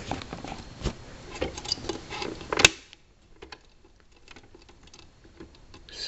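Handling noise of thin speaker wires being worked into a stereo's push-type spring-clip speaker terminals: small clicks, rustles and taps, with one sharp click about two and a half seconds in, then fainter scattered ticks.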